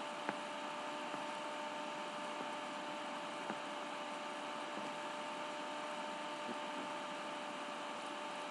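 Steady background hiss and electrical hum, with two faint steady tones, and a few soft clicks, the clearest just after the start.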